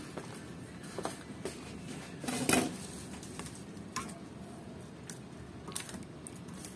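Metal spoon stirring a thin sauce in a stainless steel bowl, scattered clinks and scrapes of spoon against bowl, the loudest about two and a half seconds in.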